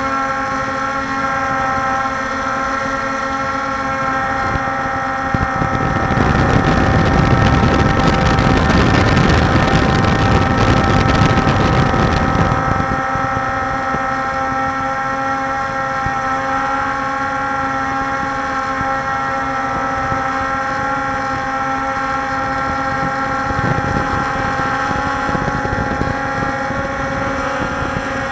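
Walkera Scout X4 quadcopter's electric motors and propellers running steadily in flight, heard from its onboard camera as a whine of several steady tones. About six seconds in, a louder rushing noise joins for about six seconds, then the steady whine carries on.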